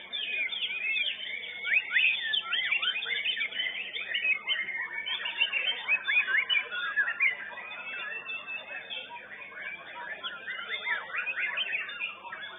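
White-rumped shamas (murai batu) singing: a dense, unbroken stream of quick whistled chirps, trills and pitch glides, overlapping one another, loudest in the first half.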